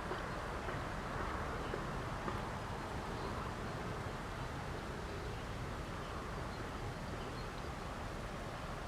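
Steady outdoor background noise: a low rumble with a soft hiss and gentle swells, with no distinct events.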